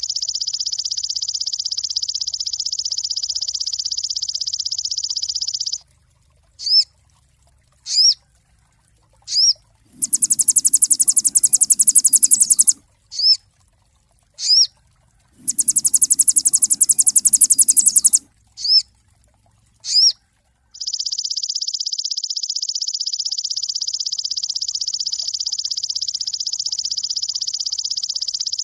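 Sogon (a sunbird) singing. A long, fast, buzzing trill stops a few seconds in. Short, sharp, upward-swept chips then come about a second apart, broken by two shriller buzzing trills of about three seconds each, before the long trill starts again near the end.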